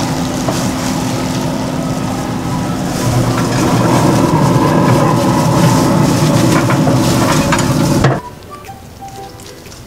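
Wood pellet grill running with a steady low hum under a loud hiss, cutting off suddenly about eight seconds in.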